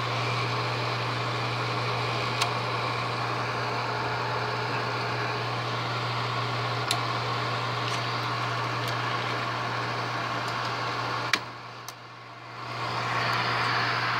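Bell & Howell 8mm film projector running, its motor and cooling fan making a steady hum with a few light clicks. About eleven seconds in there is a sharp click, the hum drops away for about a second, then it comes back up.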